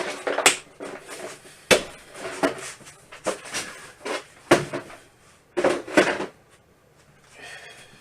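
Hard objects being handled and set down: a string of sharp knocks and clatters a second or so apart, with shuffling between them.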